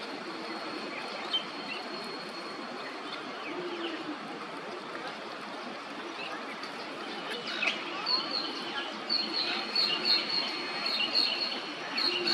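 Bird chirping in short, sharp, high calls, a few a second, starting about two thirds of the way in, over a steady outdoor background noise with a thin, steady high tone.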